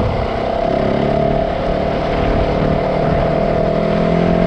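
Yamaha 450 dirt bike's single-cylinder four-stroke engine running at a steady cruising pace, its pitch held level while riding along a dirt track.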